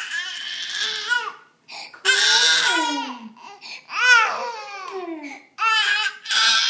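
Baby crying in angry, high-pitched wails, about four cries with short catches of breath between them: a baby's tantrum.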